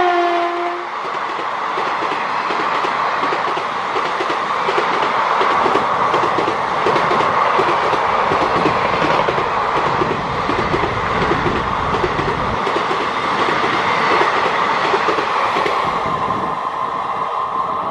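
The tail of the WAP-4 electric locomotive's horn, two tones sliding slightly down, ends about a second in. Then the express's passenger coaches rush past at speed with a dense clatter of wheels on the track, easing slightly as the last coach goes by near the end.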